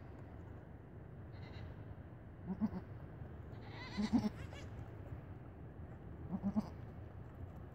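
Goats bleating in short, low calls, three times about two seconds apart with the middle call loudest, as a nanny goat licks her newborn kid just after its birth.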